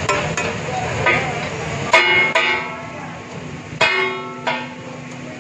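A metal ladle and spatula clanging against a large steel tawa griddle over frying sizzle: several ringing, bell-like clangs at uneven intervals, the first a couple of seconds in.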